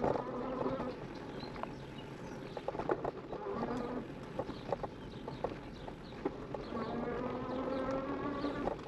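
E-bike's electric assist motor humming with a buzzy, slightly rising whine that comes and goes with pedalling: on at the start, briefly around two and a half seconds in, and again for the last two seconds. Scattered clicks and rattles run throughout as the tyres roll over the dirt trail.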